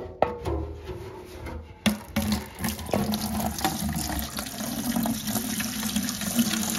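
Diesel cleaning soak draining out of a fuel tank in a steady pouring stream that starts about two seconds in, after a couple of knocks near the start.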